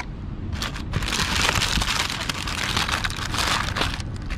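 Checkered paper liner in a foam takeout box crinkling as it is unfolded by hand. It makes a continuous crackling rustle from about a second in until near the end.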